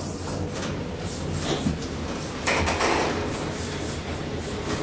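KONE hydraulic elevator running, a steady low hum with scattered knocks and clatter, louder from about two and a half seconds in.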